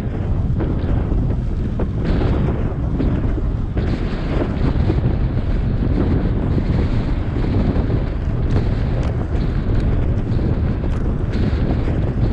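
Wind buffeting a GoPro Hero7's microphone while riding an electric bike: a steady low rumble with a few faint clicks.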